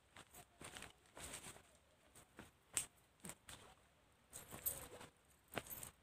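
Faint, irregular footsteps scuffing on a dry sandy dirt bank, with a few light high clinks mixed in.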